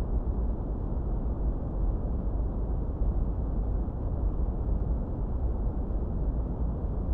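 Continuous steady masking noise, deep and muffled with no high hiss, closer to brown noise than to white.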